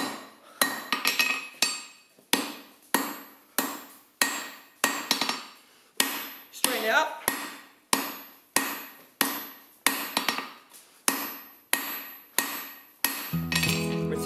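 Hand forging hammer striking a hot steel bar on an anvil, steady blows about every two-thirds of a second, each ringing briefly, drawing the bar down. Near the end the hammering stops and acoustic guitar music comes in.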